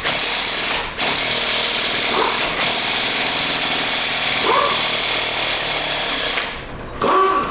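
Impact wrench hammering on a nut or bolt with an 18 mm socket, in long loud runs with short breaks about a second in and again about two and a half seconds in, stopping near the end.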